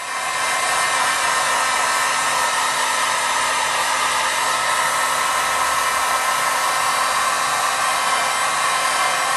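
Heat gun running steadily, blowing hot air over paper wet with lemon juice to dry and brown it. It gives an even hiss with a faint steady hum.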